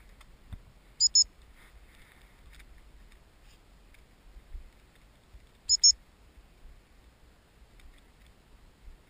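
Two double pips on a high-pitched gun dog whistle, one pair about a second in and another about four and a half seconds later, each pip short and steady in pitch, over a low steady rumble.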